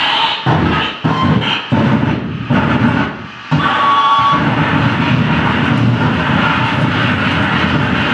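Live harsh noise: dense, distorted electronic noise played on mixers, effects pedals and a laptop. It is cut up into abrupt stop-start bursts for the first three seconds or so, then runs on as one unbroken wall of noise from about three and a half seconds in.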